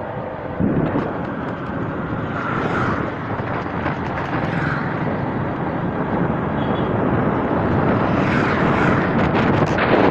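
A vehicle on the move, heard from among its riders: a steady drone of engine and road noise, growing a little louder toward the end.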